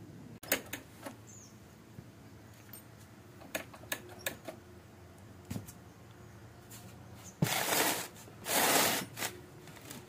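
Light metallic clicks and taps of hand tools working on a motorcycle's rear brake caliper during brake bleeding, then two short, loud hissing rushes about a second apart near the end.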